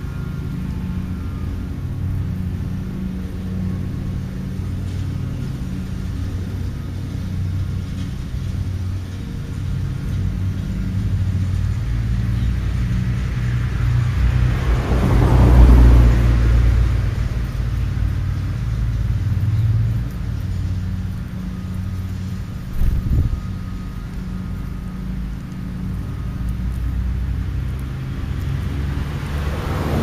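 Road traffic: a steady low rumble, with a car passing by that swells to its loudest about halfway through and fades away, and another vehicle approaching near the end. A short knock sounds about three quarters of the way in.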